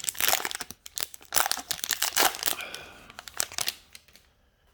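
Trading card pack wrapper crinkling and tearing as the pack is ripped open, a run of sharp rustles that stops about four seconds in.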